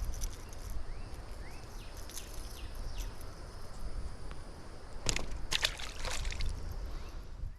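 Water splashing and sloshing, with a cluster of short splashes about five seconds in.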